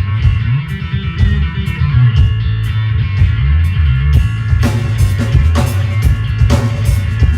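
A rock band plays live through a PA: a heavy bass guitar line, electric guitar and drums. Light cymbal ticks keep time at first, and the drums come in with fuller, harder hits a little past halfway.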